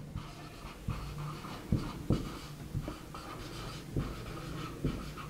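Whiteboard marker writing on a whiteboard: short, irregular scratches and taps of the felt tip as words are written, over a faint steady low hum.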